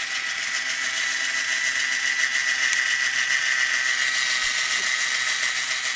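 A small motorised tool running steadily, giving a constant high whine over a hiss.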